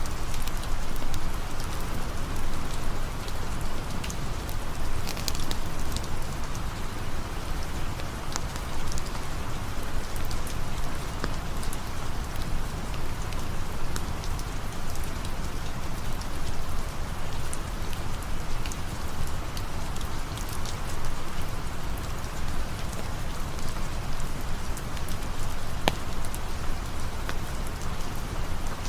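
Steady rain falling, with scattered sharp crackles and pops from a campfire.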